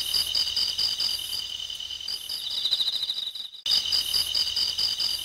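High-pitched, rapidly pulsing trill of insects, steady throughout, cutting out abruptly for a moment about three and a half seconds in.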